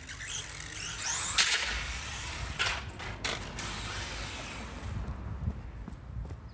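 Brushless electric motor of an RC short course truck (2845 size, 5900 kV, on a 3S battery) whining up in pitch as it accelerates hard. Several sharp clatters follow in the next couple of seconds as the truck tumbles onto its roof on concrete, and the motor then falls silent.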